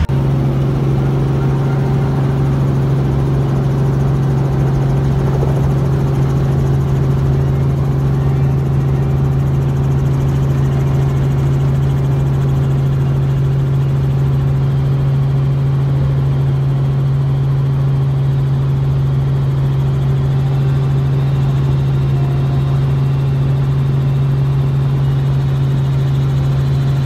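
Robinson R44 Raven II helicopter heard from inside the cabin: its rotor and six-cylinder Lycoming piston engine make a loud, steady drone that holds one low pitch without change, as the helicopter climbs out after takeoff.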